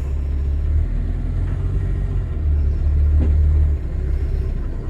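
Diesel engine of a Dayun semi-truck tractor unit running under way in first gear, a steady low rumble heard from the cab, dipping briefly a little before the end.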